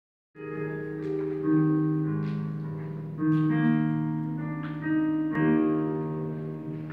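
Piano playing a slow introduction: about five chords struck a second or two apart, each left to ring and fade.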